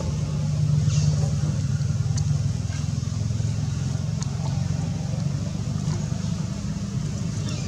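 A steady low hum of a running motor-vehicle engine, with a few faint short high ticks over it.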